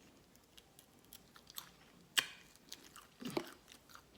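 A person chewing food close to the microphone, with scattered wet mouth clicks and smacks; the loudest smack comes about two seconds in.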